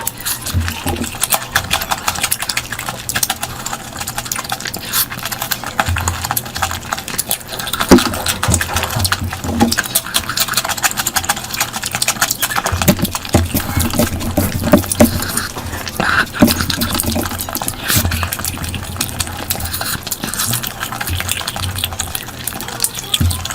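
Close-miked wet eating sounds of someone eating curry: chewing and smacking with many quick wet clicks and irregular soft low thumps.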